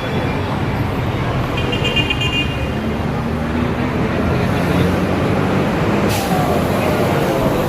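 Steady din of a busy outdoor crowd with traffic noise, with a brief sharp click about six seconds in.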